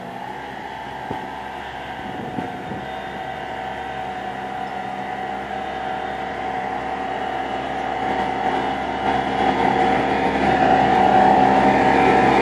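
Compact tractor engine running steadily under load while it pulls a rear rotary tiller through soil. It grows steadily louder as the tractor comes closer.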